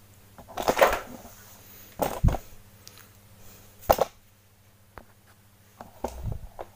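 Handling noises from work on a TV circuit board: about five short knocks and rustles, spread out, over a faint steady hum.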